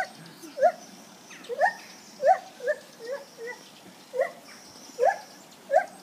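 Lar gibbon (white-handed gibbon) calling: a series of short, rising hoots, about one or two a second.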